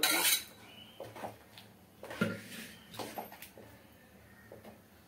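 Mashed cooked dal poured into a pot of boiling sambar, with a loud splash at first, then a spoon scraping and tapping the last of the dal out of a metal vessel several times.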